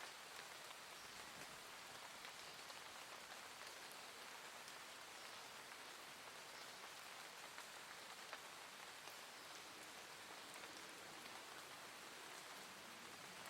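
Soft, gentle rain falling steadily: an even, faint hiss with scattered light ticks of individual drops.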